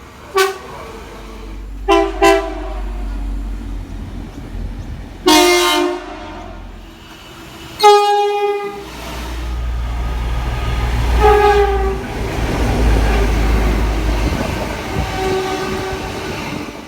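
Train horn sounding a series of short blasts, about seven in all, the loudest about five and eight seconds in, over the steady low rumble of a train.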